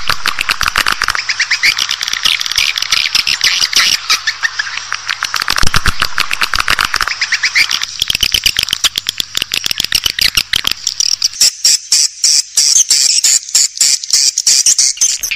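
Swiftlet calling sound: dense, rapid chirping and clicking twitter of edible-nest swiftlets, the kind of call played to lure swiftlets into a swiftlet house. After about eleven seconds the chirps thin out into sharper, higher clicks.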